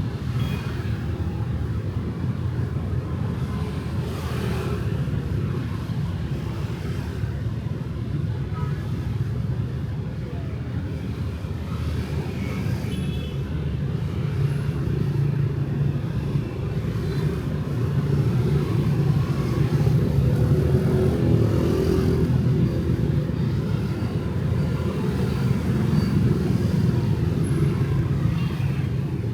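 Steady night street traffic, with motorbikes and cars passing in a continuous low rumble that grows a little louder about two-thirds of the way through.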